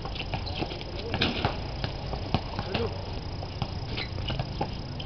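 Outdoor pickup basketball game on a concrete court: a basketball bouncing and scattered short knocks at irregular intervals, with faint voices of players in the background.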